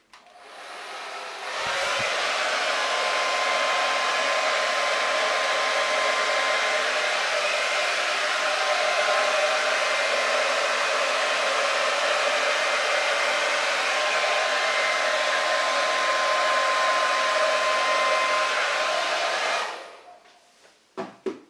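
Handheld hair dryer blowing poured acrylic paint outward across a canvas in a Dutch pour. It starts softly and comes up to full power after about two seconds, then runs steadily with a faint whine over the rush of air for roughly eighteen seconds before it is switched off.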